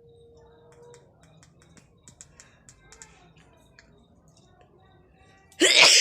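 Faint scattered clicks and rustles, then near the end a loud two-part sneeze, a person's sneeze set off by tickling the nose with a grass flower.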